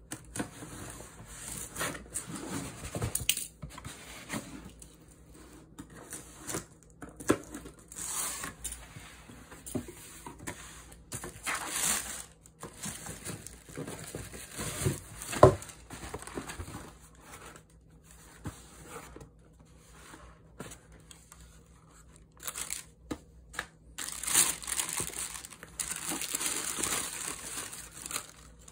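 Cardboard shipping box being cut open and unpacked: packing tape slit and torn, cardboard flaps handled, and tissue paper crinkling as the shoebox and sneakers are uncovered. The rustling comes in irregular bursts with short clicks, and a single sharp knock of cardboard about halfway through is the loudest sound.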